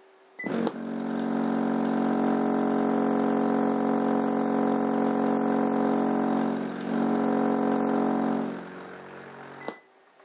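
Crossfire C3 12-inch subwoofer driven hard with a steady low test tone, a loud buzzing hum full of overtones, while its sealed box pushes air into a second subwoofer used as a generator. It switches on with a click about half a second in and cuts off with another click near the end.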